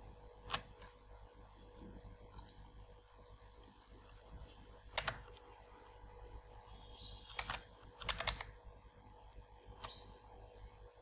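Sparse computer keyboard keystrokes: single taps spread a few seconds apart, with a quick run of three about eight seconds in.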